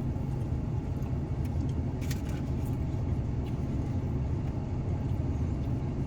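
Steady low rumble of a running car engine, with a faint click about two seconds in.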